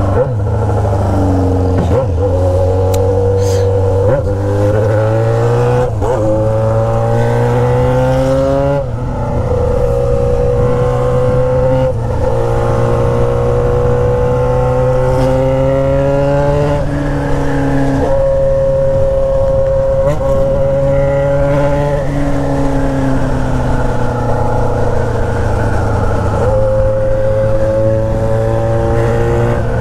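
Yamaha XJ6's inline-four engine through a straight-pipe 4-into-1 exhaust, heard from the rider's seat. It pulls up through several gears in the first nine seconds or so, the pitch dropping back at each upshift, then holds a steady cruise with short rises and dips of the throttle.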